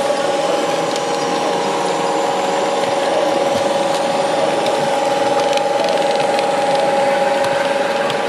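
Model diesel locomotive's electric motor and gears whining steadily as a train of coaches runs past close by, with scattered light clicks from the track.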